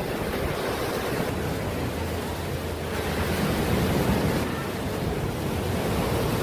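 Surf washing onto a sandy beach, a steady wash of noise, with wind rumbling on the microphone.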